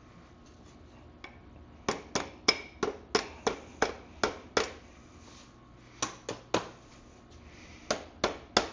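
Hammer tapping on a screwdriver used as a drift to knock a stuck motorcycle rear axle out: sharp, slightly ringing metal taps, a run of about nine at roughly three a second, then shorter runs of three or four after brief pauses.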